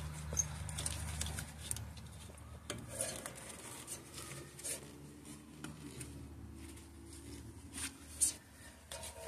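Faint handling noises: small plastic clicks and rubbing as a gloved hand works a wheel-speed-sensor harness clip into its guide on a truck's front suspension. A low steady hum fades out about two seconds in.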